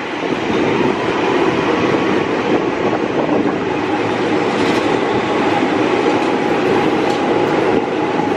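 JR 205 series electric commuter train (KRL) running along a station platform as it comes in. A steady, loud rumble of wheels on rail, with a faint steady whine above it.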